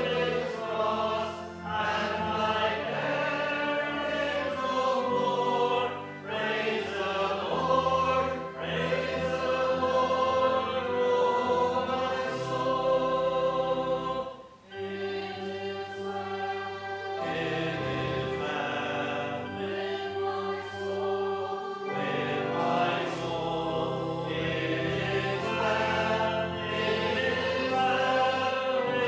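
Many voices singing a hymn together with instrumental accompaniment, held chords changing every second or two.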